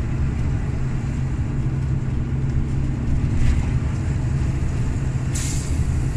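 Volvo FH460's six-cylinder diesel engine running steadily while the truck is under way, a continuous low drone heard from inside the cab along with road noise. A short hiss cuts in briefly about five and a half seconds in.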